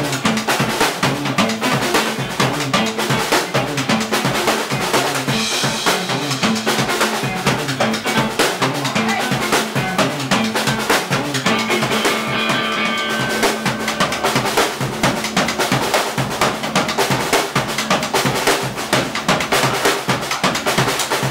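Live instrumental rock: a drum kit played hard and busy, with fast snare, bass drum and cymbal hits, under electric guitar. Short higher guitar phrases come in about six seconds in and again about twelve seconds in.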